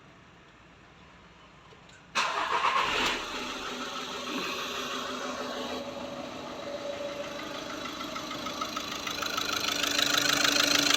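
Near quiet for about two seconds, then a Skoda Rapid's diesel engine cranks and catches, settling into a steady idle that grows louder toward the end. The engine has a slight knock after one injector was replaced, which calls for an injector quantity adaptation.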